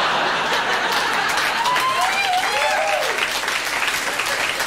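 Comedy-club audience applauding and laughing after a punchline, a dense steady clapping. A few voices call out over it about halfway through.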